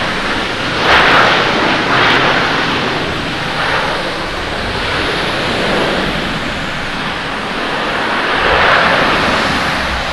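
Airbus A321-200 airliner's jet engines running as it rolls down the runway: a broad, loud rushing noise that swells about a second in, again around two seconds, and near the end.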